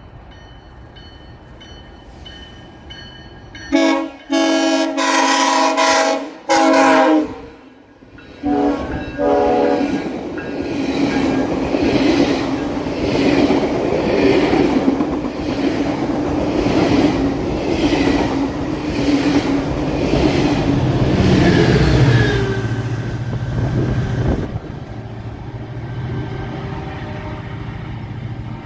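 GO Transit passenger train sounding its horn in a string of blasts, one long among several short, about four seconds in. It then passes close by with a rhythmic clickety-clack of wheels over rail joints. Near the end comes the low steady drone of its diesel locomotive.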